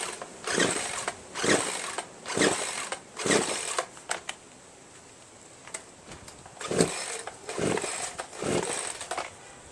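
Recoil starter of a Poulan Pro PR4218 two-stroke chainsaw being pulled hard, about one pull a second in two runs of three or four, with the engine turning over but never firing. The saw has low compression (35 psi) from a badly scored piston, rings and cylinder wall.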